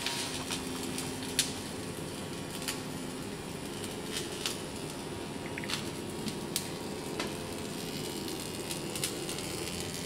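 Laser welding a copper tube onto a solar absorber plate: a steady hiss with irregular sharp crackling pops, the loudest about a second and a half in.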